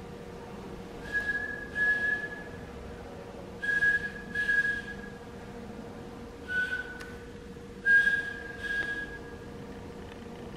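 Improvised vocal sound poetry: a performer whistles one steady high note in four phrases, each broken by two airy puffs of breath; the third phrase is shorter and slightly lower.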